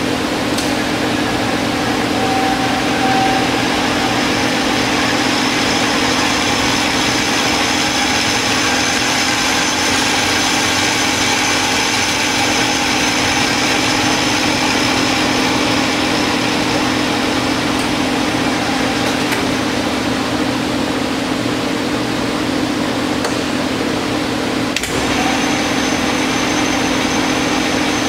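Hardinge HLV-H toolroom lathe running with its spindle turning: a steady motor and drive hum with high whining tones that shift as the spindle speed is adjusted at the control panel. A click about 25 s in, after which a new high whine sets in.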